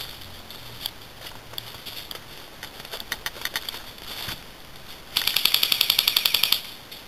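Airsoft rifle firing a rapid full-auto burst of about ten shots a second, lasting about a second and a half, near the end. Scattered single clicks come before it.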